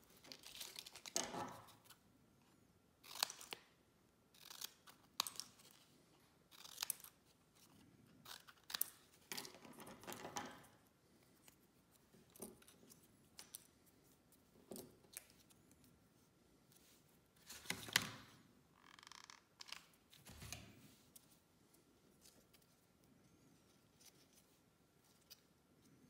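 Thin cardboard being handled and bent by hand: about fifteen short, irregular rustles and crinkles with quiet gaps between them.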